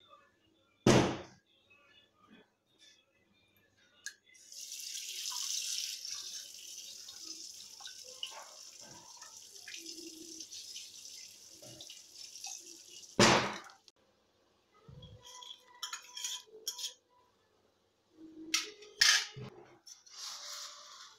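A steel cooking pot on a gas stove: a hiss in the pot that starts about four seconds in, loudest at first and slowly fading, while it is stirred, set between two sharp knocks about twelve seconds apart. Near the end, metal tongs click and scrape on a steel plate of roasted vermicelli.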